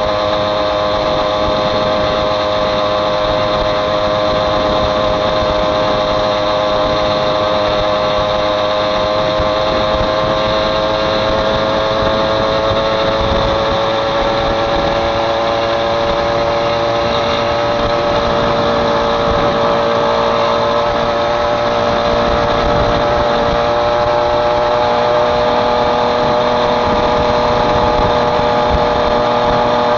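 Small two-stroke Mobylette moped engine running steadily under way, its note sagging slightly lower about halfway through.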